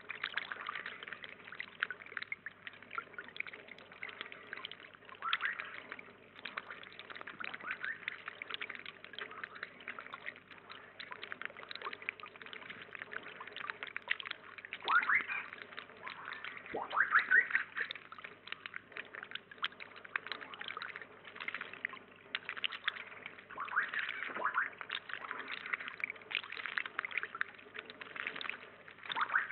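Water trickling and pouring from a small spout into a shallow pond, with a few louder splashes in the second half from a Eurasian blue tit bathing in the water.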